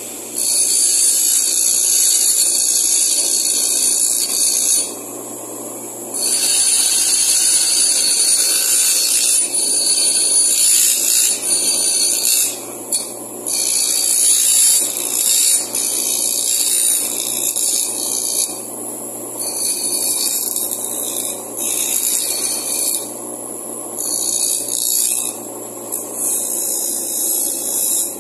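Bench grinder running with a steady low motor hum while the steel end of a pressure-cooker handle bracket is pressed against the wheel, a loud high grinding hiss with sparks. The hiss comes in several passes of a few seconds, breaking off briefly each time the piece is lifted, as the cut and snapped end is smoothed to a finish.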